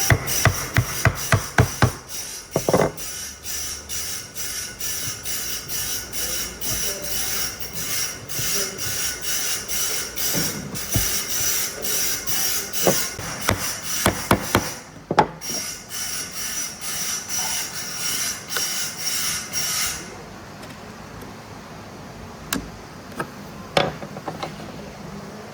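A hand tool worked back and forth in regular strokes, about two a second, with a bright metallic ring in each stroke, after a run of hard knocks at the start; the strokes stop suddenly about 20 seconds in, leaving a few light clicks.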